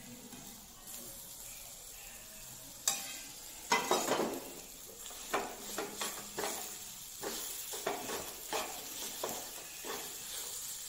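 Metal spoon stirring and scraping mashed potato masala in a frying pan over a faint sizzle. After a sharp knock about three seconds in, the scraping strokes come about one or two a second.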